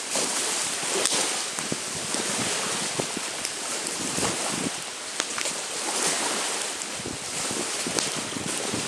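Campfire crackling with scattered sharp pops, over a steady rush of wind and lake waves.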